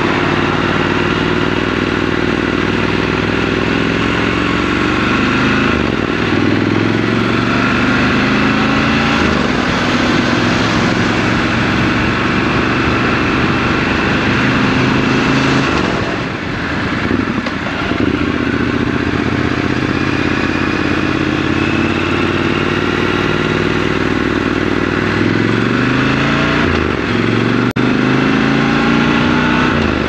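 Triumph Scrambler 1200 XC's parallel-twin engine under way in traffic, rising in pitch as it accelerates and dropping at each gear change, several times over.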